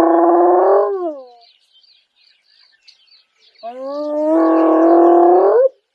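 Female spotted hyena whooping: a long, low call already under way fades out about a second in, and a second long call starts a couple of seconds later, holds a steady pitch and rises sharply at its end. Birds chirp faintly between the calls.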